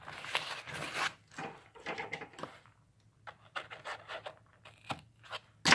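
White paper packaging torn and rustled by hand, then cut with scissors in short snips, ending in one sharp, louder crackle.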